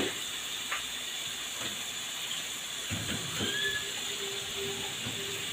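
Sliced ampalaya sizzling as it is sautéed in hot oil with onion and garlic: a steady frying hiss.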